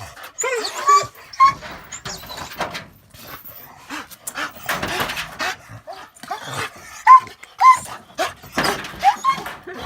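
Dog whining and giving short yelps and barks, a string of brief rising cries.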